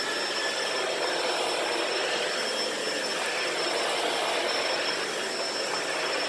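Shark Rotator Powered Lift-Away upright vacuum running steadily with its brushroll on, a rush of air with a steady high motor whine.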